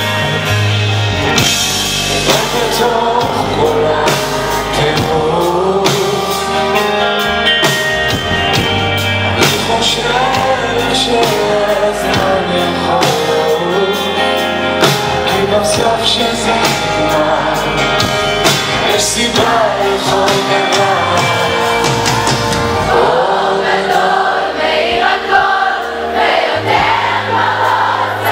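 Live pop-rock band playing, with a man singing lead into a microphone over electric guitar and steady bass.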